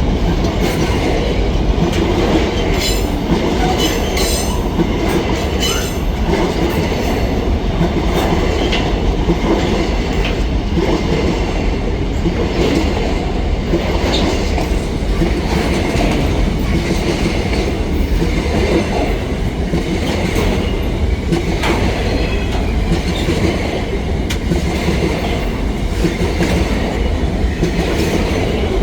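Freight train wagons rolling past steadily, the wheels clicking over the rail joints. Brief metallic wheel squeals come between about three and six seconds in.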